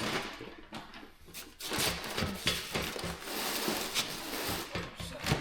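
Metal tools and parts clinking and scraping against each other, many irregular knocks and clicks over a hissing scrape that starts about a second and a half in.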